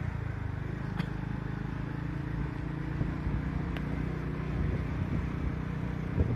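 Car engine running steadily with tyre and road noise, heard from inside the vehicle as it drives slowly along a concrete road.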